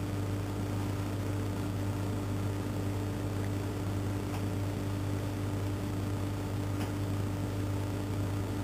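A steady low hum with a fainter higher tone above it over a constant hiss, with two faint clicks about four and seven seconds in.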